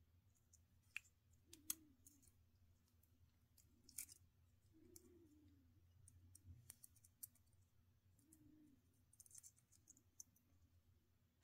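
Faint, sharp metal clicks and snips as diagonal cutters grip, cut and pry back the thin metal can of a Rubycon Black Gate electrolytic capacitor, a handful of them at irregular intervals.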